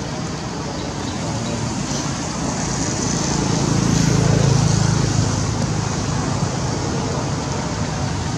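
Steady road-traffic noise, with a motor vehicle passing close by: a low swell that builds about three seconds in, peaks, and fades again a couple of seconds later.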